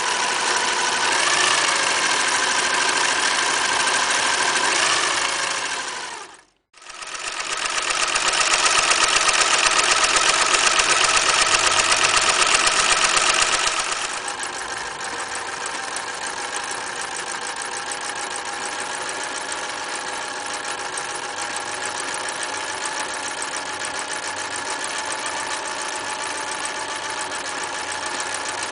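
Singer Futura 1000 electric sewing machine running and stitching, its motor giving a steady whine. It stops briefly about six seconds in, starts again louder, then settles to a quieter steady run about halfway through.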